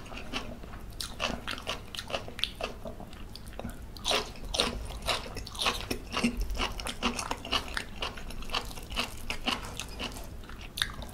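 Close-up eating sounds: a person chewing and crunching okra with sambal belacan, many short crunches and mouth clicks in quick, irregular succession.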